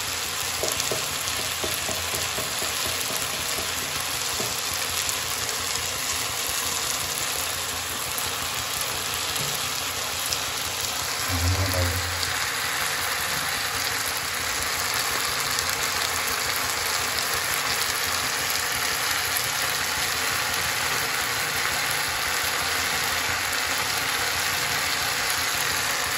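Onions, tomatoes and green peas sizzling as they fry in oil in a kadhai: a steady frying hiss that grows a little louder about halfway through.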